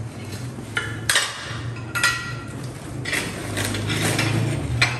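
Ceramic tile offcuts clinking and knocking against each other as they are picked up and stacked by hand: a handful of sharp clinks, some with a brief ring.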